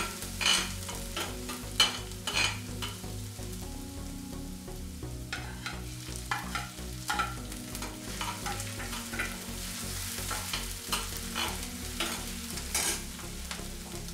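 Garlic, ginger and green chillies sizzling in oil in a stainless steel pan, with a steel spoon scraping and clinking against the pan base in irregular strokes as they are stirred.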